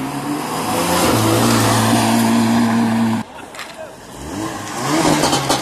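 A car engine running hard, its pitch stepping up about a second in and then held steady at high revs, cutting off suddenly after about three seconds. People talk over quieter traffic sound after that.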